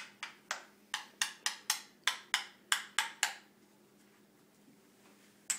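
A toy being played with, giving a quick run of about a dozen sharp, light clacks over three seconds, then a pause and another clack near the end.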